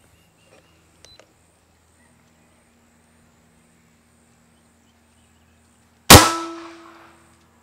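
Bushbuck 45 big bore PCP air rifle's trigger breaking under a trigger pull gauge on the low power setting, at about one pound one ounce: a few faint clicks, then about six seconds in a single sharp, loud metallic clang of the action releasing that rings for about a second.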